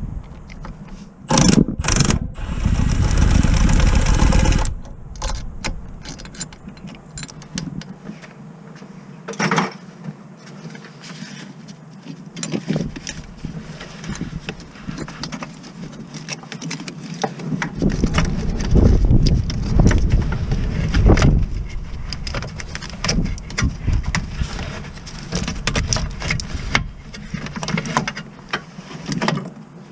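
Mechanical work on a car: repeated clanks, knocks and clicks of tools and metal parts being handled, with a roughly two-second burst of a power tool running near the start.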